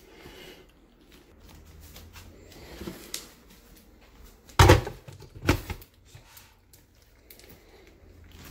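Two hard knocks about a second apart, a plastic blender jar being set down and seated onto its countertop blender base, with a lighter clatter a couple of seconds before.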